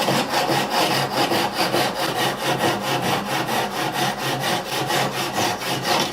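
Hand work on wood: quick, even back-and-forth rasping strokes, about five a second, which stop suddenly at the end.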